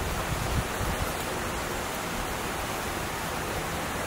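Steady rush of a mountain stream, an even hiss with no change. A few low gusts of wind buffet the microphone in the first second.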